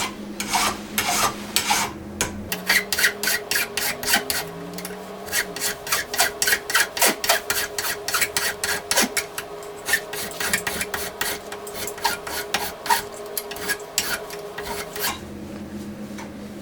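Hand file scraping back and forth on a copper tube in quick, even strokes.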